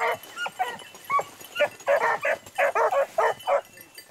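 Beagles yelping and yipping in a quick run of short, high calls, about a dozen, crowding together and overlapping in the second half.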